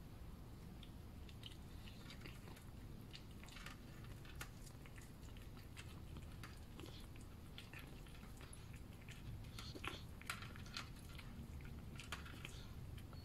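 A cat chewing and lapping wet food from a plastic tray: faint, irregular small clicks and smacks, a few a little louder about ten seconds in, over a low steady hum.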